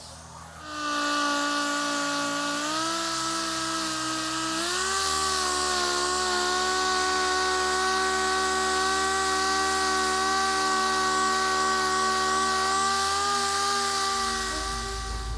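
A high-speed power tool spinning with a steady whine over a hiss. Its pitch steps up twice in the first few seconds and then holds steady, easing off near the end.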